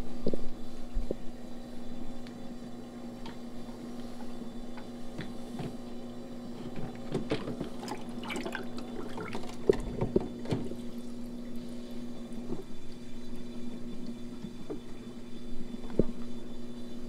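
Water sloshing and splashing in an aquarium sump as a flow pump is lowered in and positioned by hand. Scattered splashes and knocks are busiest in the middle, over a steady hum.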